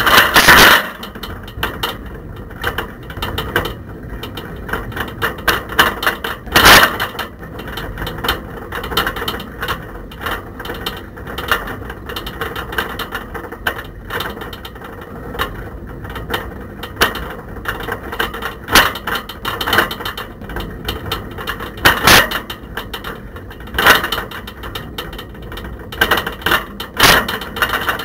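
Camera rattling and knocking about in a bicycle's basket while the bike is ridden, really rattly and noisy, with a few louder knocks: about a second in, around seven seconds in, and several more in the last third.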